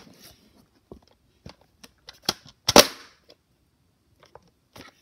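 Hard plastic toys being handled: scattered light clicks and knocks, with one louder knock a little before three seconds in.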